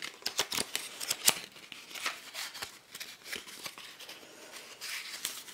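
Irregular light clicks and rustling from vintage cardboard playing-card boxes and decks being handled.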